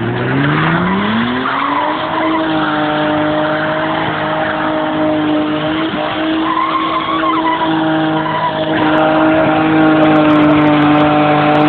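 BMW E30 325's straight-six engine revving up over the first two seconds, then held at high, steady revs during a burnout, with the rear tyres squealing and skidding on the pavement.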